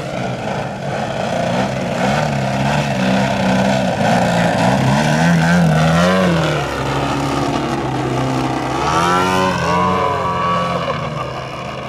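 Engine and propeller of a 108-inch 3DHS Extra 330LT giant-scale aerobatic model plane, its pitch wavering with the throttle. The pitch drops sharply as the plane passes close about six seconds in, and rises again in a sweep near ten seconds.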